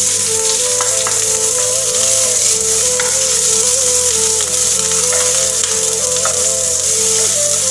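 Chopped onions and garlic frying in hot oil: a steady sizzle with a few small pops, under background music.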